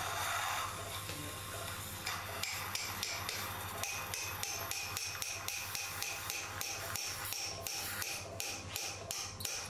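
Steel surgical mallet tapping an osteotome to chisel through the dog's iliac wing bone: after a short steady hiss, a rapid, even series of light metallic taps, about three to four a second, each ringing briefly.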